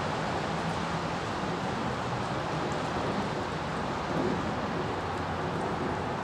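Steady outdoor ambience of distant road traffic and rain: an even rushing hiss with a faint low hum under it.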